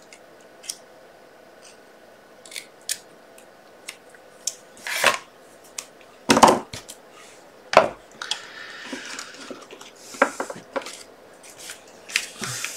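Rubber stamps, ink pads, scissors and card stock handled on a craft desk: a run of small clicks and taps, three heavier knocks about five, six and a half and eight seconds in, then a stretch of paper rustling.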